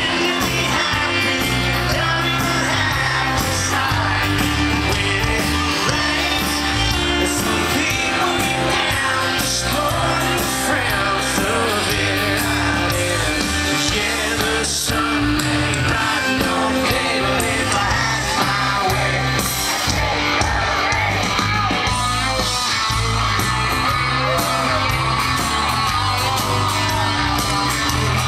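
Live country rock band playing loud, with electric guitars, drums and bass under a male lead vocal, heard from among the audience.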